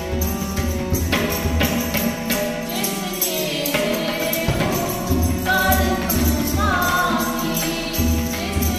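Women's voices singing a Sikh shabad (devotional hymn) to harmonium, with tabla strokes and a jingling hand percussion instrument keeping time.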